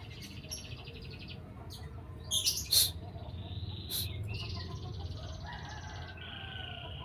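White-rumped shama singing: rattling trills and a few loud, sharp notes, loudest about two and a half seconds in.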